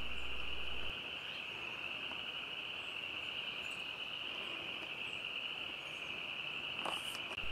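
Steady high-pitched insect chorus, a continuous cricket-like chirring.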